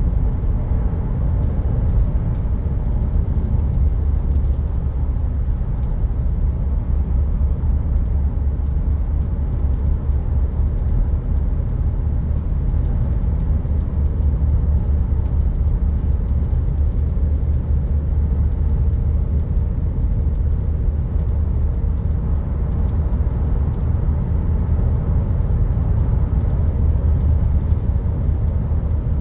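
2015 Land Rover Discovery Sport running steadily: an even, unbroken low rumble with no change in pitch.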